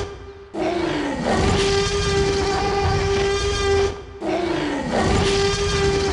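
Dubbed-in dinosaur roar sound effect, played twice. Each time a falling sweep leads into a long, held, trumpeting tone that cuts off abruptly.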